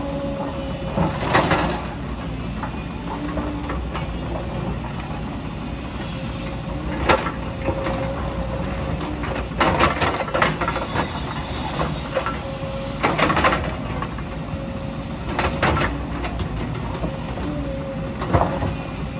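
JCB tracked excavator's diesel engine running under load while its steel bucket digs into broken rock, with several sharp knocks and clatters of stone against the bucket. A faint whine comes and goes over the engine drone.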